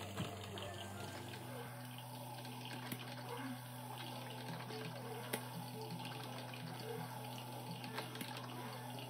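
Philips drip coffee maker brewing: hot water gurgling and bubbling through the machine with irregular small pops and a few sharper clicks, as it heats and pumps the water up to the filter and coffee drips into the carafe.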